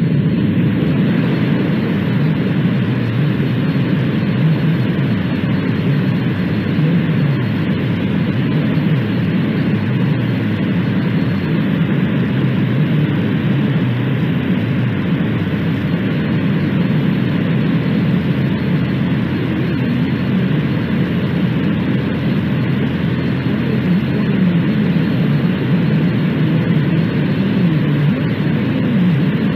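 Steady rushing radio static carried over a broadcast, heavy in the low end, with no voice or tone in it.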